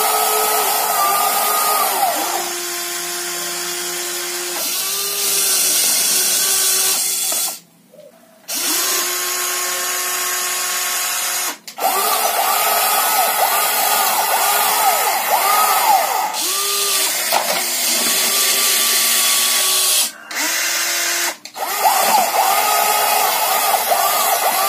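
Small electric motors and gears of remote-control toy vehicles whining, the pitch stepping and sliding up and down as they speed up and slow down. The sound breaks off suddenly several times, for about a second near the middle of the first half.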